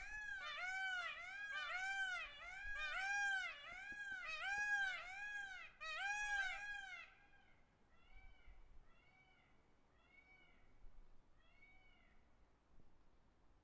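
Peacock calling in a rapid series of about a dozen loud, arching, meow-like calls, roughly two a second. These are followed by fainter calls about once a second that fade away.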